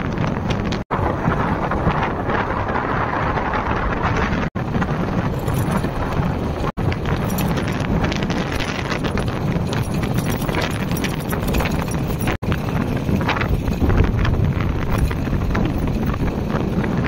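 Wind buffeting the microphone over the steady rumble and rattle of a vehicle moving along a rough road and dirt track. The sound drops out for an instant four times.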